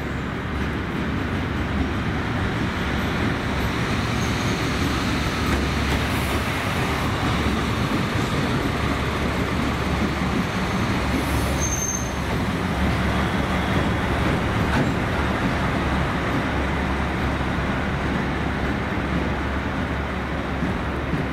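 TEM18V diesel shunting locomotive running light past at low speed: a steady diesel engine drone with a low rumble, growing a little louder as it passes. Two brief faint high squeaks, one about four seconds in and one near the middle.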